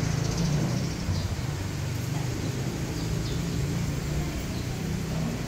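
Steady low rumble and hiss of a church interior's room ambience.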